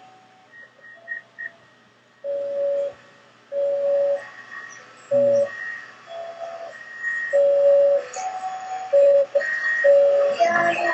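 A string of about a dozen short musical notes, each held at one steady pitch, at a few different pitches, played one at a time. Near the end a baby's voice sings along.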